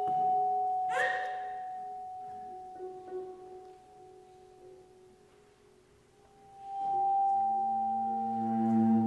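Sparse improvised music: a held high tone slowly fading, with a bright struck note about a second in. Near the end a new high tone swells in over low droning tones.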